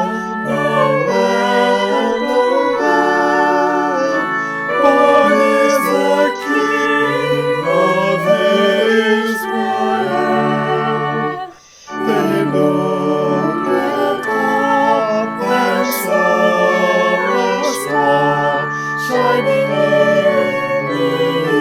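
Organ music: sustained chords under a moving melody, with a brief break a little past halfway before it resumes.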